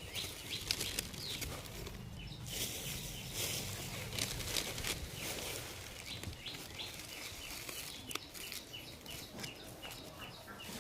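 Small birds chirping repeatedly over a low outdoor hiss, with a few light clicks from handling.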